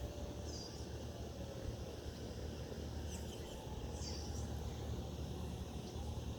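Distant Federal Signal 3T22 fire siren sounding faintly as thin, slightly wavering tones during a long fire-call activation, under a steady rumble from a running fan. Short high bird chirps come about half a second in and twice around three to four seconds in.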